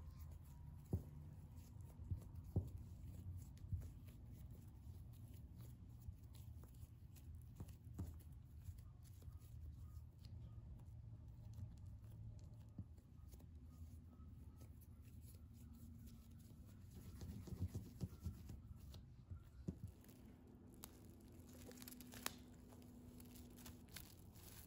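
Quiet sounds of hands working bread dough on a counter: scattered soft taps and rustles, a small cluster of them a little past the middle, over a low steady hum.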